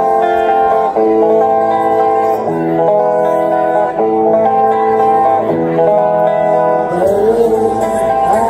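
Karaoke backing track of country-style music playing steady held chords; a woman's singing voice comes in over it near the end.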